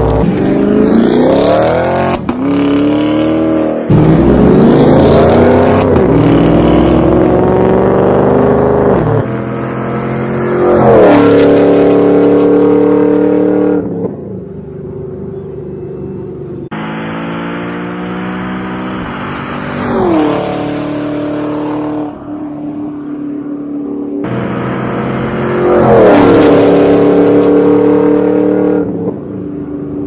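Chevrolet Camaro SS V8 exhaust, loud, on hard-acceleration drive-bys cut together from several runs. The engine note climbs with the revs and falls sharply in pitch three times as a car goes by.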